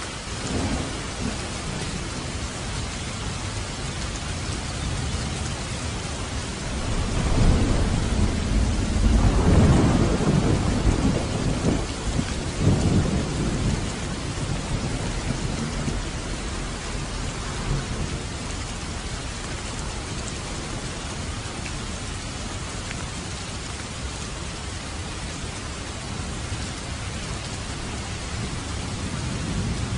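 Heavy rain falling steadily on a road and vegetation. A long low rumble of thunder builds about seven seconds in, is loudest a few seconds later with a second surge, and dies away over the next few seconds.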